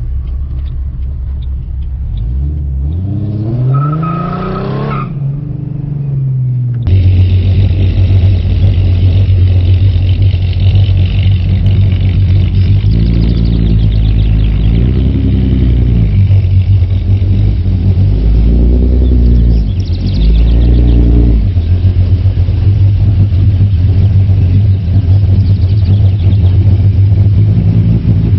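2008 Ford Mustang's 4.0 SOHC V6 exhaust idling loudly, with a quick rev and fall a few seconds in. After it gets louder at about 7 s, several short throttle blips follow.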